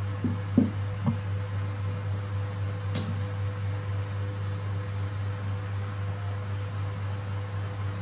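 Steady low hum with a constant faint higher tone throughout, with a few soft knocks in the first second or so and a single sharp click about three seconds in.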